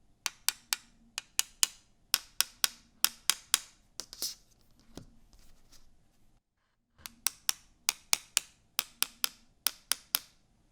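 Typing on a mechanical keyboard with Alpaca linear switches lubed with Krytox 205g0 and GMK keycaps: crisp keystroke clacks at about three to four a second, in two runs broken by a short gap past the middle, with one heavier, longer stroke about four seconds in.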